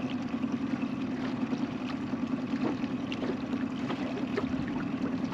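Boat motor running steadily at trolling speed, a low even hum, over a steady rush of water.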